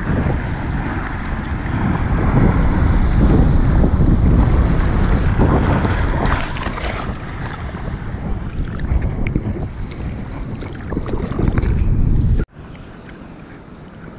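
Wind buffeting a GoPro's microphone over open ocean water, a heavy rumble with bursts of surf hiss; the sound drops off abruptly near the end.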